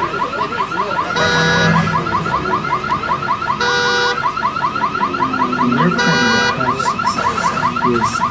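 Car alarm sounding a fast, repeating rising chirp several times a second, with a held horn-like blast joining three times, about every two and a half seconds. It is a sound effect on a staged wreckage set.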